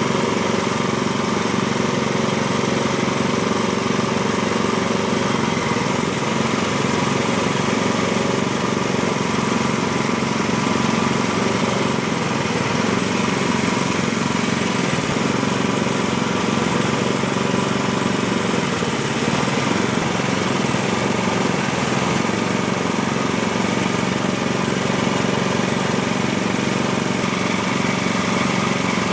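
Hydraulic portable sawmill's engine running steadily at idle, a constant drone with no change in speed, as it powers the hydraulics for turning the log.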